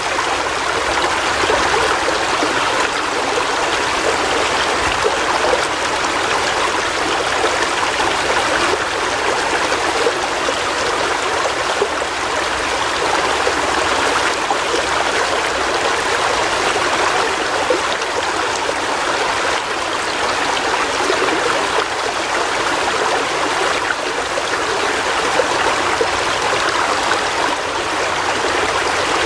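River water flowing over rocks: a steady rushing and babbling.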